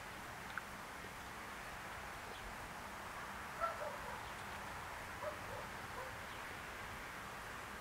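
Steady outdoor hiss with a few short bird chirps, the loudest about three and a half seconds in and more around five and six seconds in.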